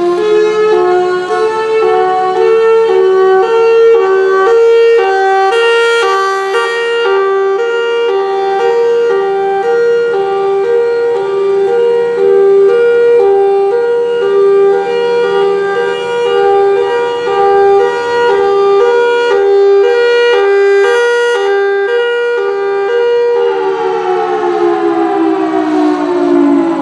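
Federal Signal Thunderbolt 1003 mechanical siren sounding its hi-lo signal, alternating between a high and a low tone every half second or so, with its horn rotating. About 23 seconds in the alternation stops and the siren winds down, its pitch falling steadily.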